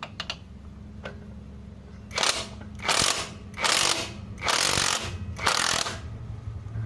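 Cordless impact wrench hammering in five short bursts, each a fraction of a second, starting about two seconds in, working a wheel bolt loose. A steady low hum runs underneath.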